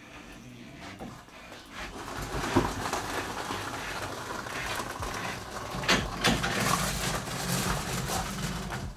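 A boat trailer is hauled by hand on its jockey wheel. Its wheels rumble across concrete and then crunch onto gravel, with a few clunks along the way.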